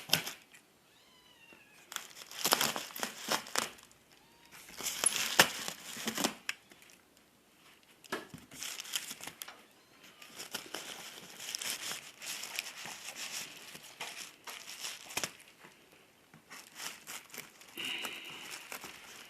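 Bubble wrap and packaging crinkling and rustling in repeated handling bursts as a PC case is unwrapped, with a kitten meowing faintly now and then.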